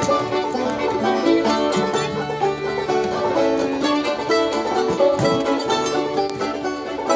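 Acoustic string-band jam with mandolin, fiddle and guitar playing together: a busy run of picked notes under a bowed fiddle line.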